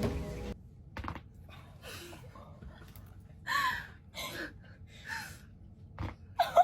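A person gasping and breathing sharply several times, with short pauses between the breaths. There are a couple of short sharp clicks, and the loudest gasp comes near the end.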